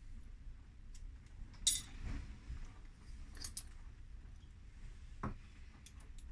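Screwdriver and small metal parts of a wooden pepper mill clinking as the mill is taken apart: a few light metallic clinks, the sharpest a little under two seconds in, and a duller knock about five seconds in.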